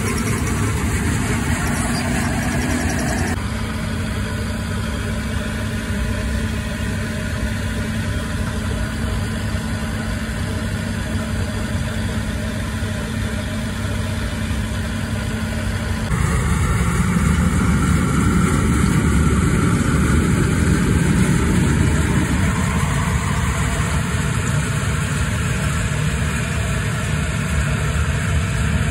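New Holland TC5.30 combine harvester running steadily while harvesting rice, its engine and threshing machinery making a continuous mechanical hum. The sound changes abruptly about three seconds in, and again around sixteen seconds, after which it is louder and deeper.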